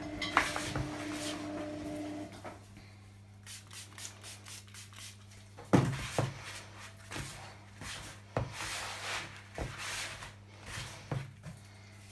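Hands rubbing and working a crumbly, powdery bath bomb mix of bicarbonate of soda and citric acid in a bowl, a dry gritty rustle broken by a few sharp knocks against the bowl.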